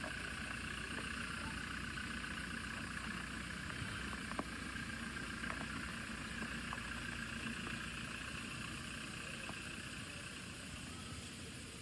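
Steady background ambience: a constant low hum with several steady high-pitched tones over it, and a few faint clicks.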